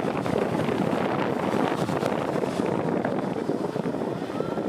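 Steady wind and engine noise aboard a passenger ferry under way.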